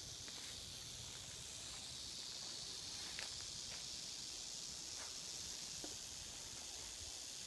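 Northern Pacific rattlesnake rattling its tail as a defensive warning: a faint, steady high-pitched buzz. A few light snaps of dry brush sound over it.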